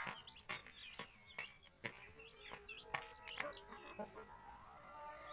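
Chicks peeping in short high chirps while a hen clucks with a longer low call in the middle, over frequent sharp taps of beaks pecking grain from a plastic dish.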